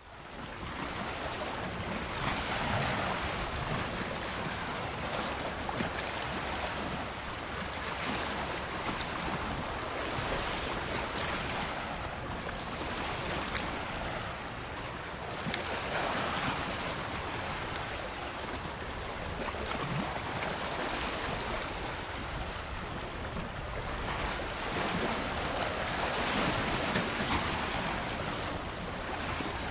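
Ocean waves washing onto a beach: a continuous surf hiss that swells and eases every few seconds as each wave breaks and runs up.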